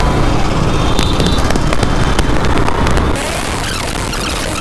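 Wind blasting and crackling on a helmet-mounted Maono AU-400 microphone on a moving motorcycle, over low road and engine noise. About three seconds in, the sound drops suddenly to a steadier, quieter rush.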